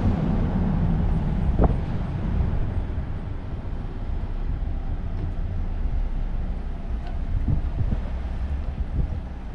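Jeep Rubicon driving, a steady low engine and road rumble, with a single short knock about one and a half seconds in.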